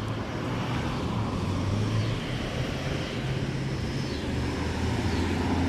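A car driving slowly past as it turns, its engine running with a steady low hum over the hiss of tyres and road noise.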